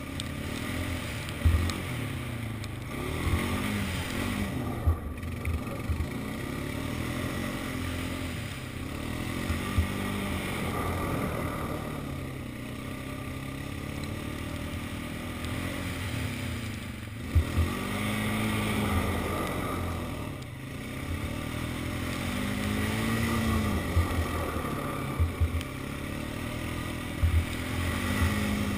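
Honda Rancher ATV engine running as it is ridden over snow, its note rising and falling back several times as the throttle is opened and eased, with occasional sharp knocks.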